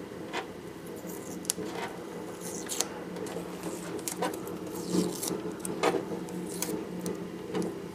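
Fingernail scratching and picking at a paper barcode price sticker on the Macintosh LC's plastic case, peeling it off in a series of short, irregular scrapes over a steady low hum.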